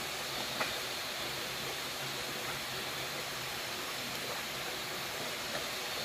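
Steady rush of flowing water from a forest stream or waterfall, with a faint click or tap just after the start and another near the end.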